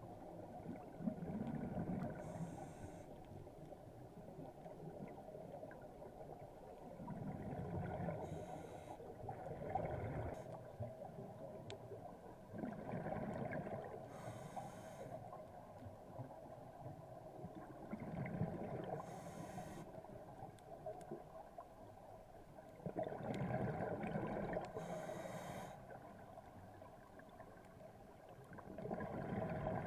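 Scuba diver breathing underwater through a regulator: a short hiss on each inhale and a bubbling rumble of exhaust bubbles on each exhale, about one breath every five seconds.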